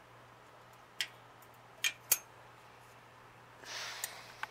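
Steel flat-bar muffler bracket being handled and fitted against a motorized bicycle's frame: sharp metallic clicks about a second in and twice close together near two seconds, then a short scraping rustle near the end.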